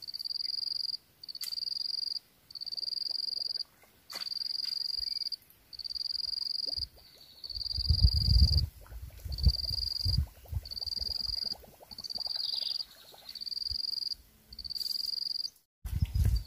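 A swamp animal's high, even-pitched call, repeated in about a dozen pulses of most of a second each, roughly one every second and a bit. A few low thumps on the microphone come in the middle.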